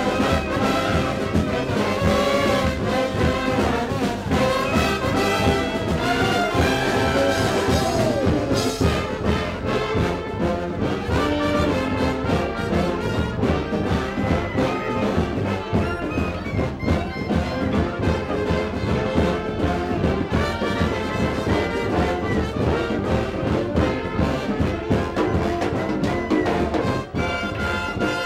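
Brass band music: trumpets and trombones playing a tune over a steady beat.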